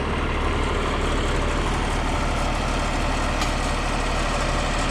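A heavy engine idling steadily, low and even, with no change in speed.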